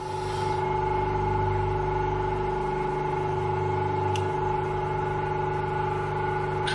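Bench grinder motor running steadily, a constant whine with two steady tones over a low hum.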